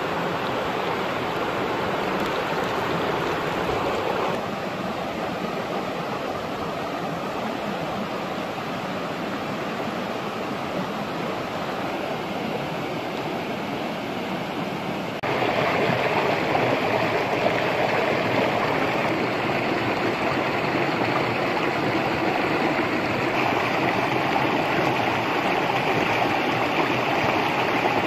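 Stream water running steadily, an even rushing. It drops slightly about four seconds in and grows louder about fifteen seconds in.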